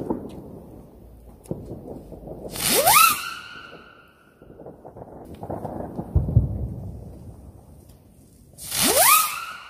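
Two Lesli Moskito fireworks taking off, about six seconds apart, each a hissing whoosh with a whistle that sweeps sharply up in pitch and then holds briefly before fading.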